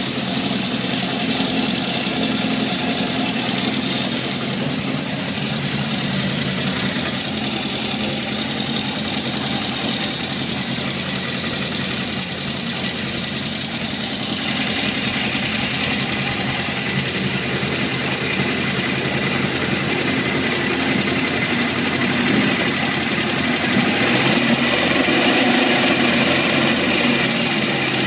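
1978 Honda CB750F's air-cooled inline-four idling with a steady mechanical rattle, a little louder near the end. The owner takes the rattle for worn crankshaft bearings, damaged when low oil pressure starved the engine.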